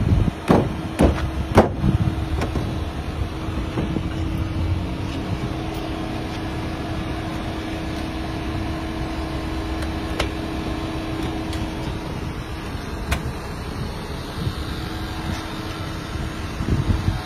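A vehicle engine running steadily with a low hum, with a few sharp knocks in the first two seconds.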